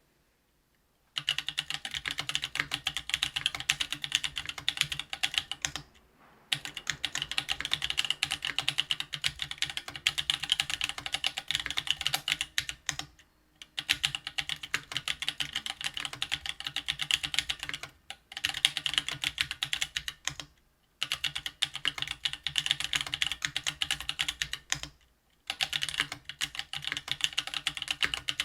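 Fast typing on a RAMA Thermal mechanical keyboard with stock Ethereal Panda 68 g tactile switches: runs of rapid keystrokes starting about a second in, broken by several brief pauses.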